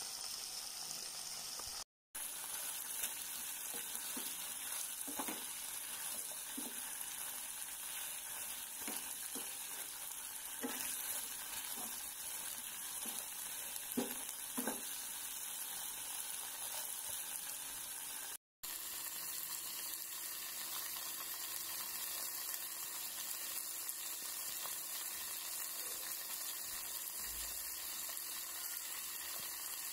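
String beans and chicken liver sizzling steadily as they stir-fry in a pan. A spatula knocks and scrapes against the pan now and then in the first half. The sound drops out very briefly twice.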